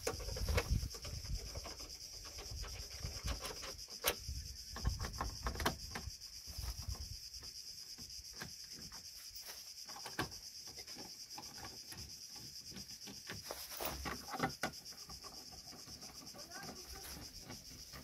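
A screwdriver working the screws and clips of a car's plastic front-panel cover, making scattered clicks, taps and scrapes of tool on plastic.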